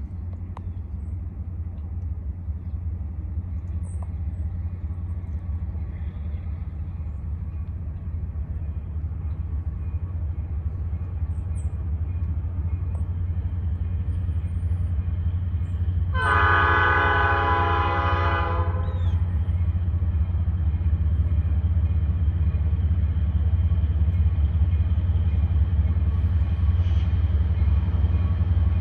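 EMD SD40-2 and GP15-1 diesel locomotives approaching, their low engine rumble steady and growing louder. About halfway through comes one locomotive horn blast of about three seconds.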